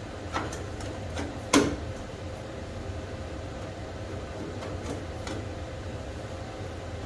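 A few short clicks and knocks, the loudest about a second and a half in, with fainter ones later, over a steady low hum.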